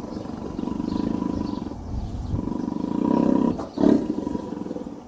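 Tiger roaring: two long pulsing roars of over a second each, then a shorter, louder one near the end.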